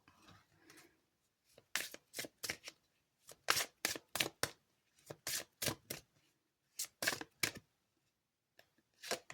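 A series of short, sharp clicks in irregular clusters of two or three, about fifteen in all, with a pause near the start and another near the end.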